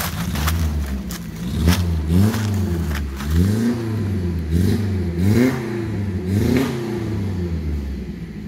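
Small off-road Suzuki jeep engine being revved repeatedly, the revs climbing and dropping back about six times over a steady running note.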